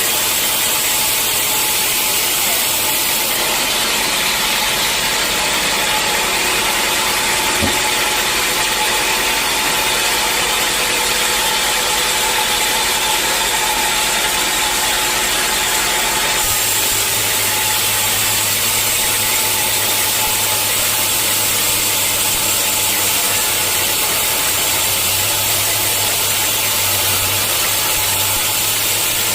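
Sawmill machinery running, a loud, even mechanical noise whose character shifts abruptly twice.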